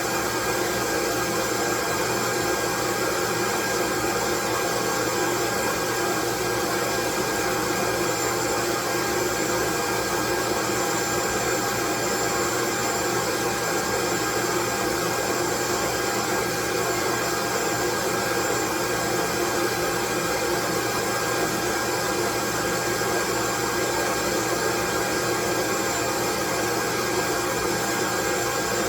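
Steady, unchanging white noise with a few faint steady tones running through it.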